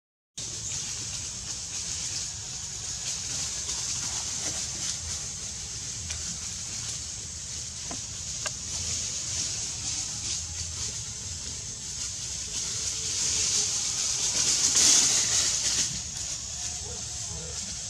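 Cicadas droning steadily in a high, even buzz, swelling louder about fifteen seconds in.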